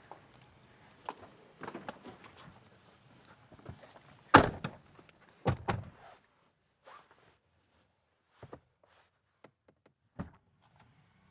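Car doors opening and shutting as people climb into a vehicle: scattered knocks and shuffling, a loud thunk about four seconds in, another a second later, and a sharper knock near the end.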